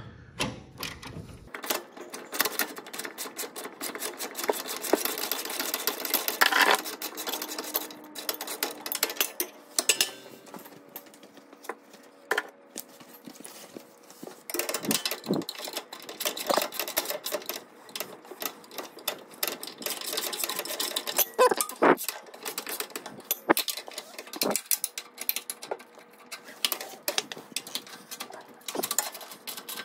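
A half-inch socket ratchet on extensions clicking rapidly as it turns the lawn tractor's 16 mm engine mounting bolts, in long runs at first and then in shorter bursts, with a few separate knocks.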